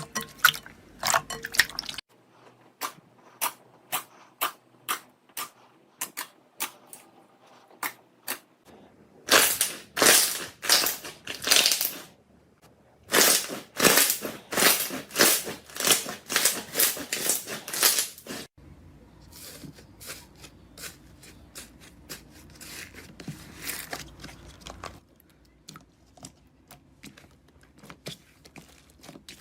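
Slime being squeezed and pressed by hand, making a series of sharp crackles and crunchy pops. The crackles come about two a second at first, grow louder and denser in the middle, then turn softer. The sound changes abruptly several times.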